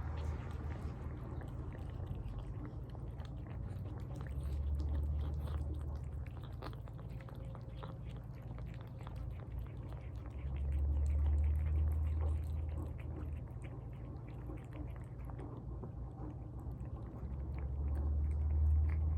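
A cat eating tuna: wet chewing and lip-smacking with a steady run of small sharp clicks. A low rumble swells up three times.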